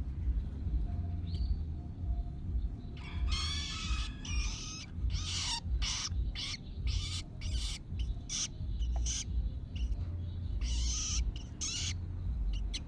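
Young long-tailed shrike (cendet) chick giving a string of short, harsh begging calls, about one or two a second, starting about three seconds in and stopping near the end, over a low rumble.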